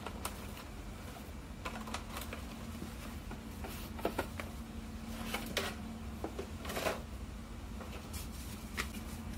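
Hands handling a folded paper instruction leaflet and a card packet: scattered short paper rustles and light taps, the longest rustle about seven seconds in. A faint steady hum sets in a little under two seconds in.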